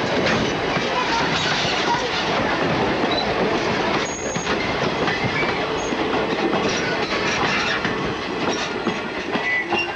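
A steam train's passenger coaches rolling past close by: steady wheel-on-rail noise with clickety-clack over the rail joints and a few short, high wheel squeals.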